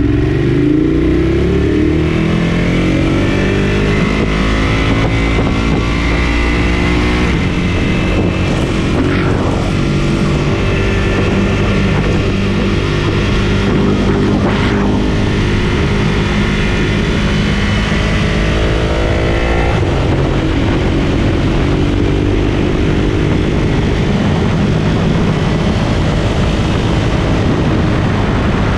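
Ducati Monster 1200 S L-twin engine pulling hard through the gears. Its note climbs steadily and drops sharply at upshifts about seven seconds in and again near twenty seconds, over a steady rush of noise.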